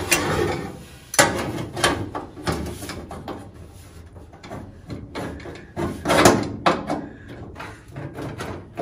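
Irregular clicks and knocks of a VW accelerator pedal and its hinge base being handled and fitted together by hand, the parts tapping against each other and the steel floor pan. A few knocks come in the first three seconds and the loudest come about six seconds in.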